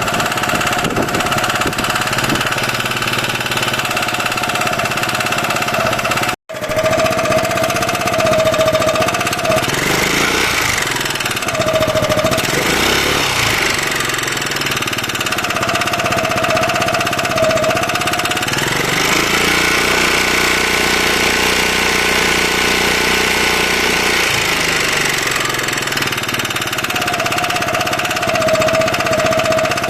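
Honda Freeway MF03 scooter's single-cylinder four-stroke engine running with a metallic knocking, blipped up and down once or twice and then held at higher revs for several seconds before settling back to idle. The knock is the sign of a top-end fault (cylinder head, valves or piston).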